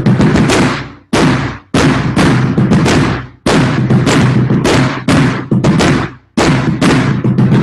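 Rope-tension marching bass drum struck with mallets, playing a fast, loud rhythmic pattern of ringing strokes broken by a few brief rests.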